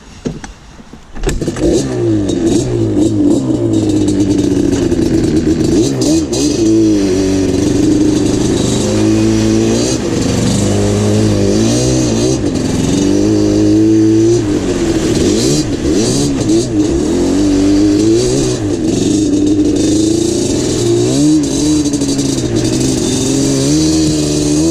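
Yamaha Banshee 350's twin-cylinder two-stroke engine being ridden hard, its pitch rising and falling over and over as the throttle is worked. It jumps up loud about a second in.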